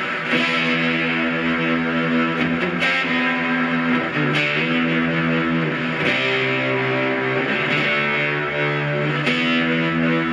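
Electric guitar played through the Stomp Box Fuzz pedal: thick, distorted, sustaining fuzz chords, struck anew every second or two.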